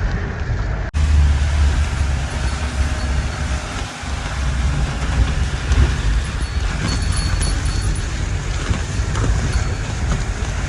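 Off-road jeep on the move: steady engine rumble and road noise, interrupted by a brief cut about a second in.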